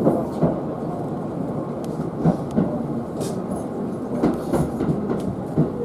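Commuter train running, heard from inside the car shortly after pulling out of a station. Its wheels clack over rail joints in pairs about every two seconds over a steady rumble.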